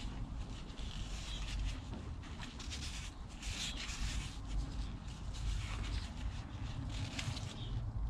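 Gloved hands wiping the aluminium housing of a Ford Transit diesel vacuum pump: a run of irregular rubbing strokes, roughly one a second, over a low background rumble.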